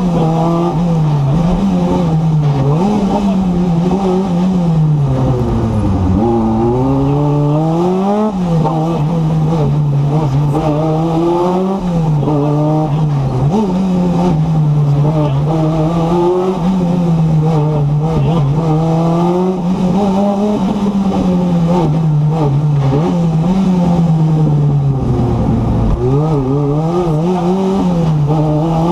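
Renault 5 Turbo's turbocharged four-cylinder engine at full rally pace, heard from inside the cabin, its revs rising and falling through the gears. The revs drop sharply under braking for tight bends about six seconds in and again near the end, then climb back.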